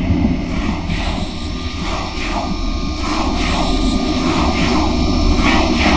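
Loud, deep rumbling drone with a string of short noisy swells above it, a horror sound effect.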